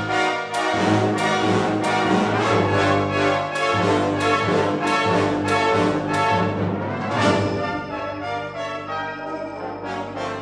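Brass band playing, with regular accented chords about twice a second for roughly the first seven seconds, then a softer, held passage.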